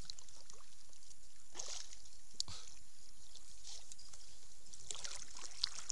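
Quiet water sounds around a kayak: low, steady lapping of water at the hull, with a couple of faint knocks.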